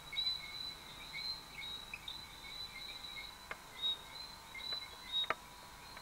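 Tropical forest chorus of insects and small frogs: steady high-pitched chirping, with short notes repeating over and over. A few sharp clicks come in the second half.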